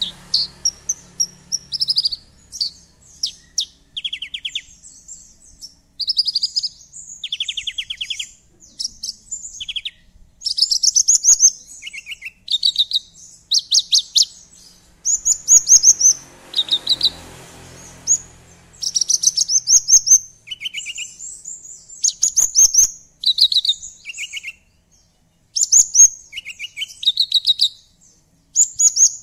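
Javan bush lark (branjangan) in full song: a fast, varied run of short, high-pitched phrases of rapid trilled notes that jump from pitch to pitch, with only brief pauses between them.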